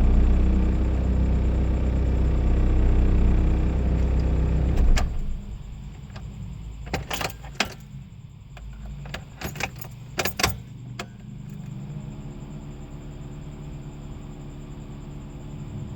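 A car engine sounds loud and low for about five seconds, then cuts off. A series of sharp clicks and jingling keys follows, then a faint steady hum.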